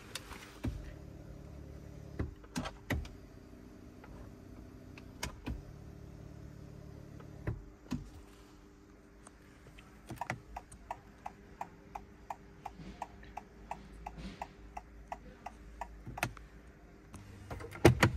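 2024 Honda Civic hazard warning lights ticking at about three clicks a second, switched on at the dashboard button and running for about six seconds. Before the ticking there are scattered clicks and knocks of hands on the interior trim and controls, and a loud knock comes near the end.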